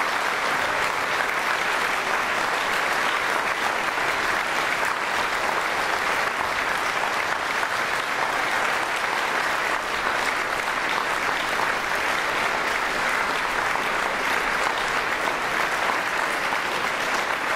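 Large concert audience applauding, a dense, steady clapping of many hands that holds at an even level throughout.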